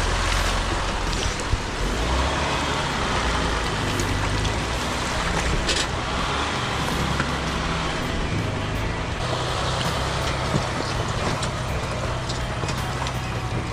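Jeep Wrangler's 3.0 EcoDiesel engine running at low crawling speed, a steady low drone, with its tyres sloshing through muddy water running down the trail. A few short knocks come from the tyres and body over rocks and roots.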